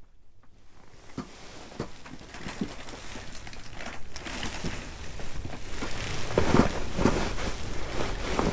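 Wind buffeting the fabric walls of a pop-up ice shack, a rustling, pattering noise with scattered light taps and knocks. It starts faint and grows steadily louder.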